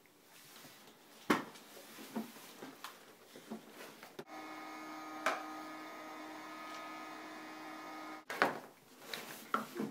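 A toy vacuum cleaner's steady hum switches on about four seconds in, runs for about four seconds and cuts off suddenly. Around it, a few thumps and knocks of a cardboard box as a toddler crawls through it.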